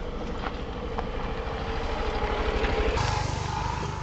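Motor scooter's small engine running as it rides past close by, getting louder to a peak about three seconds in, then fading as it moves away.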